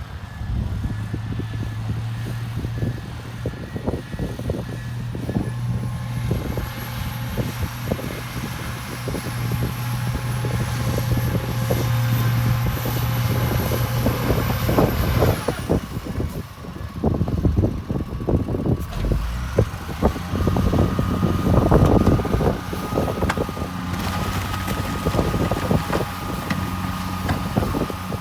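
A heavy diesel engine runs steadily, with many short metallic clanks and knocks through it. About halfway through the engine note changes, and the sound grows louder for a while after that.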